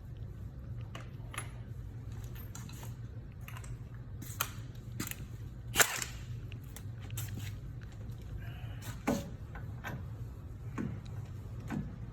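Scattered metal clicks and clanks of tools and sockets being handled, the loudest about six seconds in, over a steady low hum.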